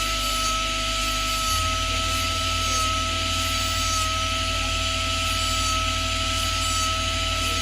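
A small CNC jewellery machine running with a steady high whine and a rasping, scraping sound as it cuts a gold ring.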